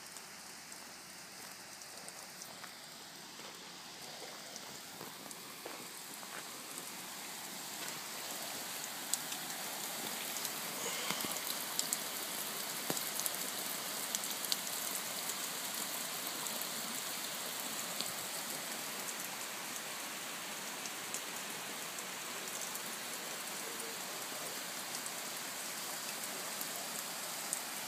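Water from a spray-bar rig spraying onto glass French doors, a steady hiss with a patter of drops like rain. It grows louder over the first several seconds. The doors are being water-tested for leaks.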